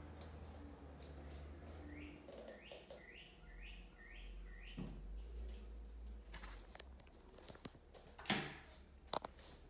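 A quick run of about six short chirps from a small animal, followed a few seconds later by a sharp knock and a smaller click.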